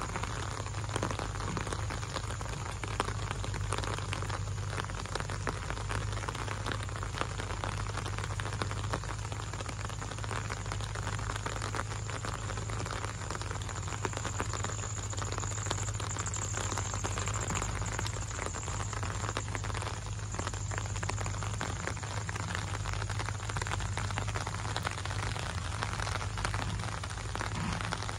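Gentle rain falling steadily on leaves and wet paving, a dense even patter of drops, with a low steady hum underneath.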